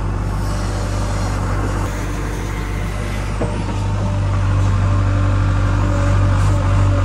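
Diesel engine of a backhoe digger running steadily with a constant low hum while its bucket digs into soil.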